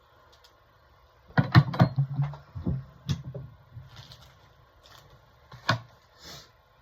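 Small engine parts and tools being handled on a workbench: a quick run of clicks and knocks about a second and a half in, lighter ticks after, and one more sharp knock near the end.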